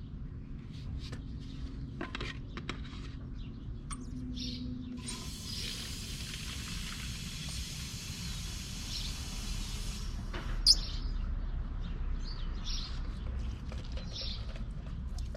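Water runs into a spray bottle for about five seconds, mixing dish soap and water into a soapy leak-test solution. A sharp click follows near the end of the pour, and birds chirp throughout.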